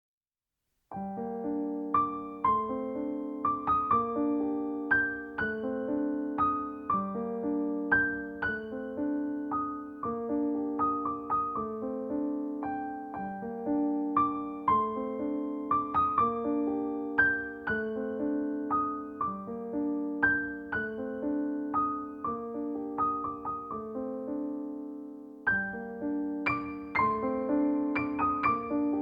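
Background piano music: a gentle melody of struck notes, each fading away, starting about a second in after a moment of silence.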